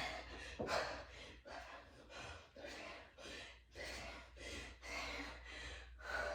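A woman breathing hard from exertion, in quick, rhythmic gasping breaths about two a second.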